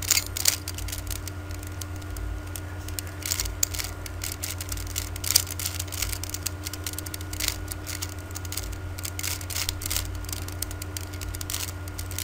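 Plastic Rubik's Cube being turned by hand: an irregular run of quick clicks and clacks as the layers are twisted, over a steady low electrical hum.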